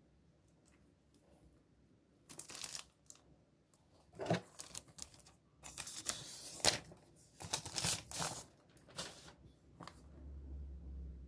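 Thin plastic protective film being peeled off a new MacBook Pro's aluminium bottom case, in several crackly rustling pulls, the loudest about six to seven seconds in.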